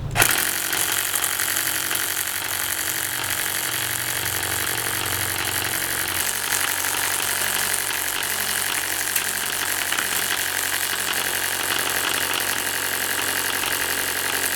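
Airsoft Vulcan minigun firing one long continuous burst of BBs, its motor-driven barrels running steadily; it starts suddenly and cuts off suddenly near the end.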